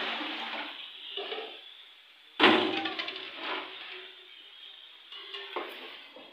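Metal cookware clanking: a sharp, loud knock of a utensil against a cooking pot about two and a half seconds in, ringing briefly, with a few smaller knocks after it.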